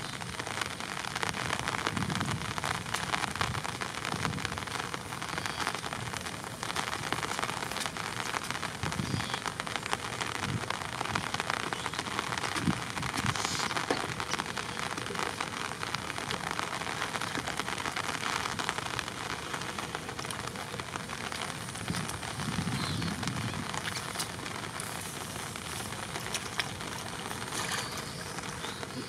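Steady rain falling in a dense, even patter.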